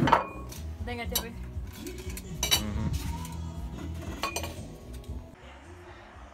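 Small ceramic plates and cutlery clinking as they are set down on a wooden table, with a few separate clinks that ring briefly.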